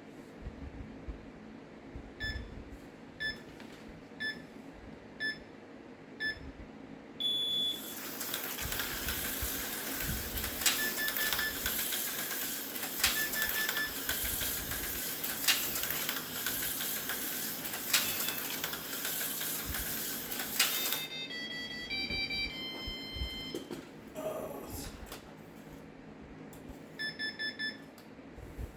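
Electronic lap timer beeping a countdown, five beeps a second apart, then an AFX Mercedes C-9 HO slot car running laps for about thirteen seconds, its motor and tires making a steady whirring hiss, with a faint click about every two and a half seconds and the timer beeping. It ends with a short descending electronic tune and a few beeps near the end.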